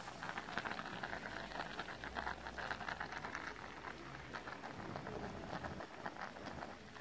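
A pot of water with chunks of food in it at a rolling boil, bubbling with a steady crackle of many small pops.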